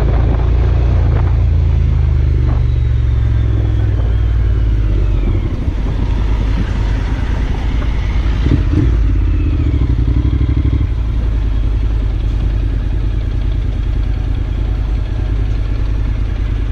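Motorcycle engine running as the bike rides slowly through city traffic, picked up by the rider's onboard camera, with a steady low rumble.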